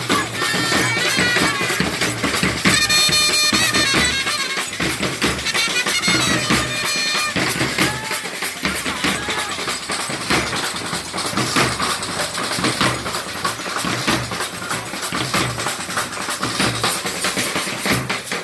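Procession band music: large double-headed drums beaten with sticks in a fast, steady rhythm, with a wind instrument playing a melody over them. The melody drops out about seven seconds in, leaving mostly drumming.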